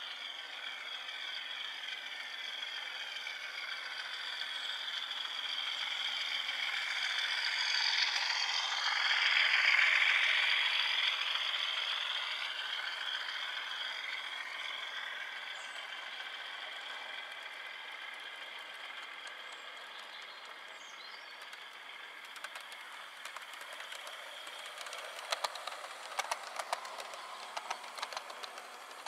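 OO-gauge model train running past: the locomotive's small electric motor whines and its wheels run on the track. The sound grows louder to a peak about ten seconds in, then fades. Near the end there is rapid clicking of model wheels on the rails as a second model train runs by.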